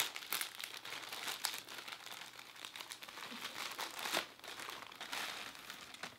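Packaging crinkling and tearing as a mailed package is opened by hand, a dense run of crackles with sharper snaps scattered through it.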